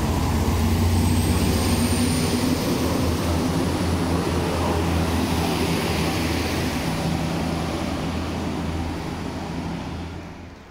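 Diesel railcar engine running with a steady low drone as the train pulls out and moves away; the sound fades near the end.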